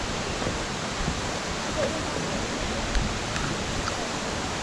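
Waterfall water rushing in a steady, even torrent, with a short knock about three seconds in.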